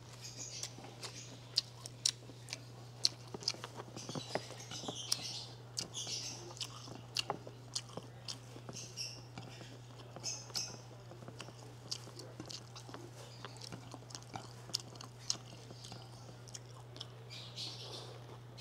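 Close-miked chewing of a mouthful of rice and sautéed bamboo shoots, with many short, sharp mouth clicks and wet smacks throughout.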